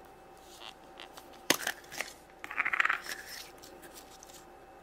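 Plastic surprise-egg capsule snapping open with one sharp click about a second and a half in, followed by a few lighter plastic clicks. A short rustle follows as the toy's paper wrapper is handled.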